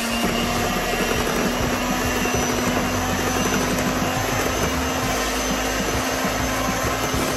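Electric mixer running steadily, beating mashed overripe bananas into creamed butter and sugar for banana bread batter.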